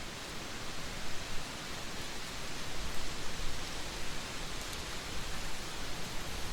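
Trade wind blowing steadily: an even rushing noise that swells in gusts, strongest a little over a second in and around the three-second mark.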